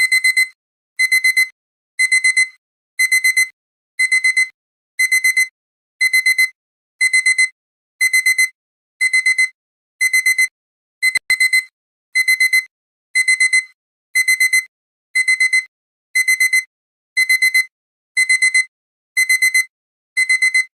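Electronic alarm-clock beeping: clusters of quick, high-pitched beeps repeating about once a second, the alarm signalling that the countdown timer has reached zero.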